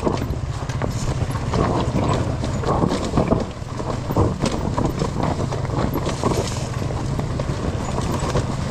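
Off-road enduro motorcycle engine running at low revs, with irregular knocks and clatter over it.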